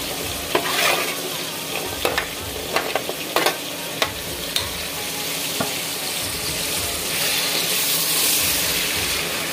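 Sliced red onions deep-frying in hot oil with a steady sizzle, while a perforated metal spoon stirs them and clicks and scrapes against the pan every second or so. The sizzle grows louder about seven seconds in.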